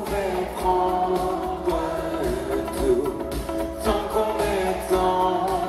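Live pop band playing on stage: a voice sings a melodic line over drums and keyboards, picked up from within the audience.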